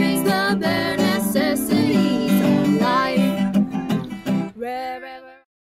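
Background music led by acoustic guitar, dying away and stopping just before the end.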